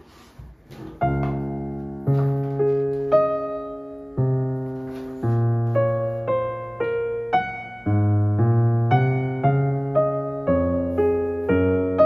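Background piano music: a calm melody of single notes over low sustained bass notes, starting about a second in.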